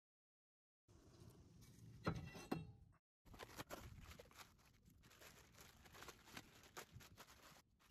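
A few sharp knocks and scrapes about two seconds in, then plastic wrapping crinkling and rustling as a new brake rotor is unwrapped in its cardboard box.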